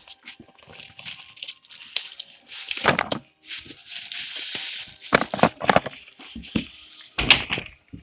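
Packaging being handled: plastic wrapping rustling and foam packing blocks scraping against a cardboard box as a heater is pulled out. Several knocks and thuds come about three seconds in, again around five to six seconds, and near the end.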